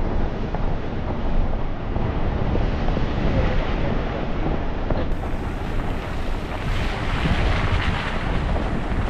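Wind buffeting the microphone: a loud, steady rush with a deep rumble underneath.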